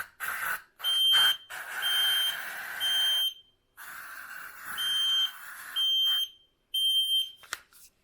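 FireAngel ST-625 smoke alarm sounding its high beeping pattern of three half-second beeps, then a pause, then three more, after being triggered by the smoke test and failing to silence. Two stretches of hiss and a sharp click come in between the beeps.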